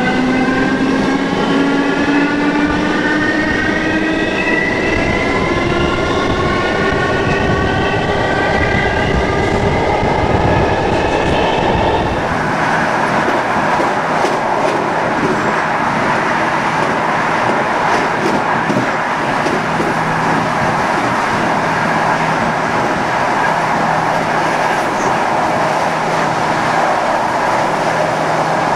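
SNCB AM80 electric multiple unit accelerating. The traction motors' whine, several tones together, rises steadily in pitch. About twelve seconds in it changes suddenly to a steady rushing running noise with a low hum, with the train at full power.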